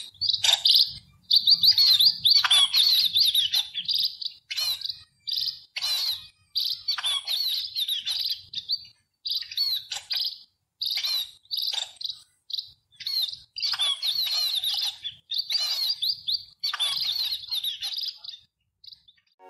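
House sparrow chirping in quick runs of short cheeps, the runs broken by brief pauses.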